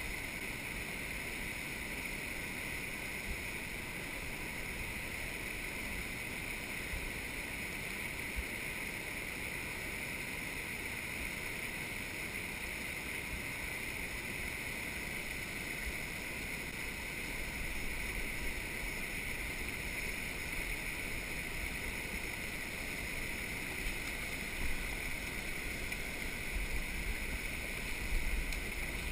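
Flowing creek water running over rocks, a steady hiss, with a few low bumps near the end.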